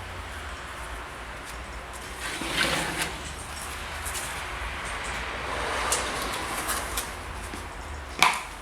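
Shoe-cover machine in use: rustling and scattered clicks, with a sharp snap near the end, over a low steady hum.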